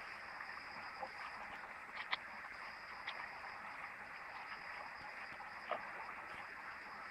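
Steady outdoor ambience of a tropical garden by a stream: a constant hiss with a steady high insect drone above it, and a few light crunches of footsteps on leaf litter, about two seconds in and again near the end.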